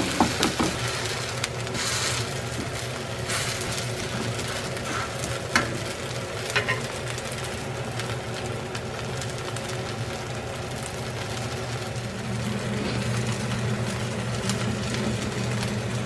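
A chamnamul and shrimp pancake sizzling as it fries in oil in a pan, with a few sharp clicks of a wooden spatula against the pan. A steady low hum runs underneath and grows stronger in the last few seconds.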